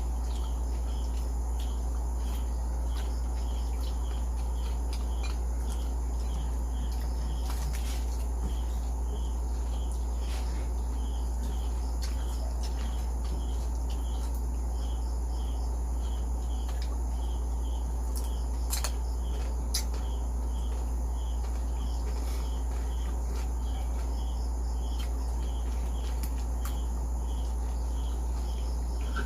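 Crickets chirping in short, evenly repeated pulses over a constant low hum, with a few sharp clicks.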